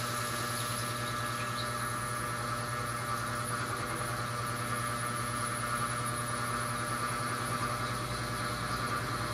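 CNC milling machine running a carbide key cutter slowly through 316 stainless steel at about 700 RPM under flood coolant: a steady machine hum with several held tones and a constant hiss.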